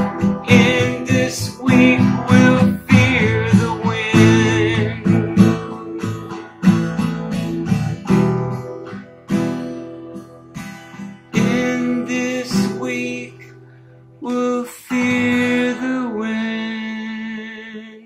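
Acoustic guitar strummed in chords, with a man's singing voice coming and going over it. Near the end the song closes on a last chord that rings and fades away.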